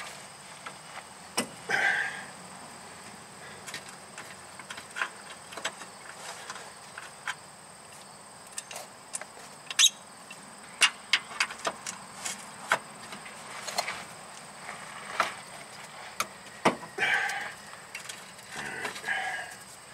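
Scattered metallic clicks and knocks of a socket, extension and universal joint being worked onto a seized steering-rack mounting bolt. There are a few short, louder bursts: one about a second and a half in, and two near the end.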